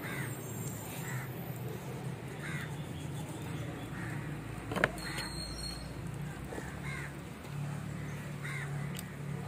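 Crows cawing every second or two in the background, over a low steady hum. There is a single sharp knock about halfway through.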